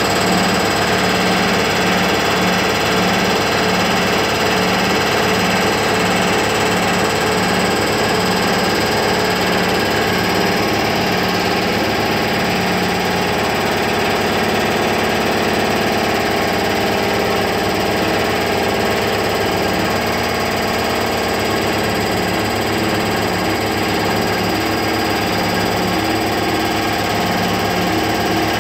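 V63 electric locomotive standing powered up, its transformer switched on and its auxiliary machinery, including the air compressor, running in a loud, steady mechanical hum. A low rhythmic pulse repeats a little over once a second and is clearest in the first half.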